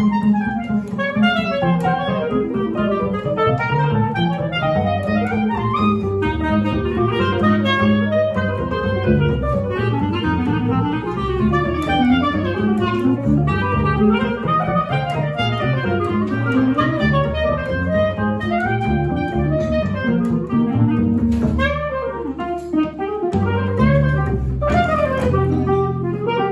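Jazz trio of clarinet, guitar and bass playing a bebop tune: the clarinet runs a fast melodic line over a moving bass line and guitar chords.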